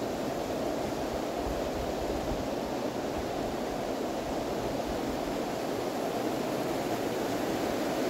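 A fast-flowing hillside stream rushing steadily, an even noise without breaks or pauses.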